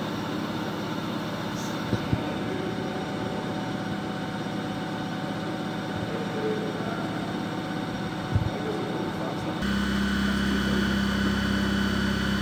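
Haas VF-6/50 vertical machining centre running: a steady mechanical hum with several steady tones and a couple of short clicks. About ten seconds in it steps up louder with a strong low hum.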